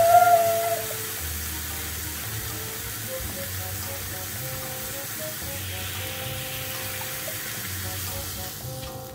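A large slab of beef sizzling on a tabletop gas grill pan, a steady hiss, under background music. A brief high tone sounds in the first second, the loudest moment.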